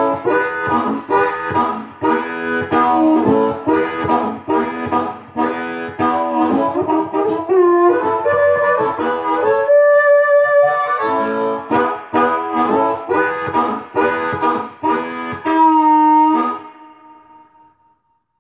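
Hohner Blues Harp harmonica in A, amplified through a vintage Calrad DM-31C harp microphone and a Monoprice SB-12 tube amp. It plays rhythmic chugging chords, with a long held note about ten seconds in, and ends on a held note that dies away a couple of seconds before the end.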